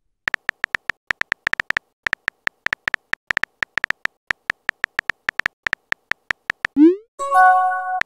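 Simulated phone-keyboard typing sound effect: a fast, irregular run of short tonal clicks, one per keystroke as a text message is typed. Near the end comes a quick rising swoosh as the message is sent, then about a second of a steady electronic tone.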